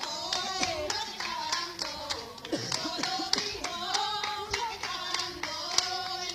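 A group of women clapping their hands in a steady rhythm while voices sing a folk song along with the clapping.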